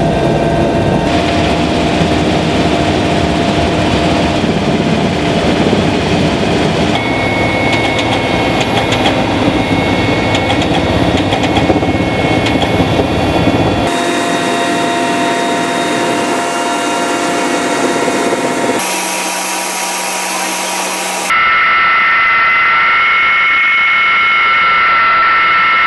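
Mi-8AMTSh helicopter turbines and rotors running at full power, the noise changing abruptly every few seconds between shots. Near the end it becomes a steady high turbine whine over the rotor of a helicopter standing on the ground with its blades turning.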